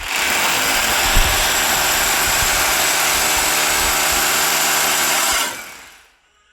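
Electric drill running steadily under load for about five and a half seconds, then winding down, typical of boring a hole in the wall for a TV mount.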